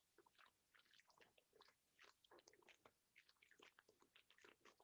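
Near silence, with faint scattered clicks and rustles from small items being handled.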